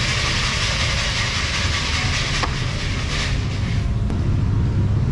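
Raw chicken pieces being tossed and rubbed in flour in a plastic bucket by a gloved hand: a rustling hiss with uneven surges that fades about four seconds in, over a steady low rumble.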